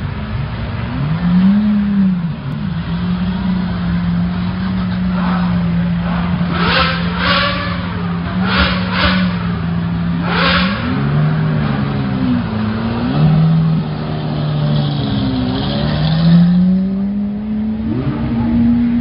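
Supercar engines, among them Lamborghini Aventador V12s, revving as the cars pull out one after another, the pitch climbing and dropping again and again. A cluster of short sharp bursts comes about a third of the way in.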